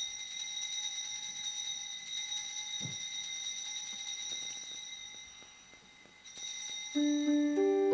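Altar bell ringing for the elevation of the chalice at the consecration. Its high ringing tone sustains and slowly fades, then it rings again about six seconds in. Near the end a keyboard begins playing sustained chords.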